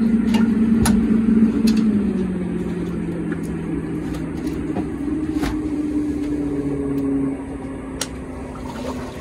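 Boat motor running steadily, its hum dropping in pitch about two seconds in and rising again about five seconds in, with a few sharp clicks over it.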